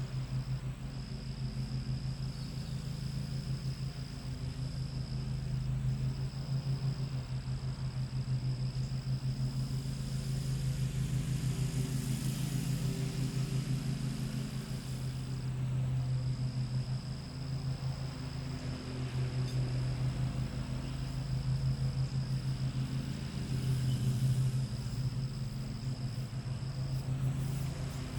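Lawn mowers running steadily, a low pulsing engine drone that swells and eases a little in loudness. A thin high insect trill sounds over it and drops out briefly a few times.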